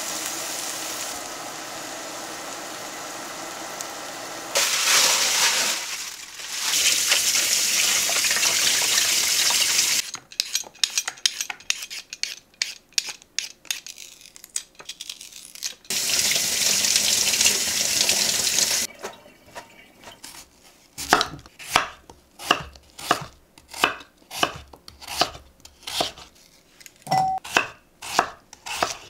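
Marinated bulgogi sizzling in a frying pan, the sizzle growing louder a few seconds in. Then quick scraping strokes of a vegetable peeler on a potato, a brief return of steady hiss, and a knife chopping potatoes on a wooden cutting board, nearly two sharp knocks a second near the end.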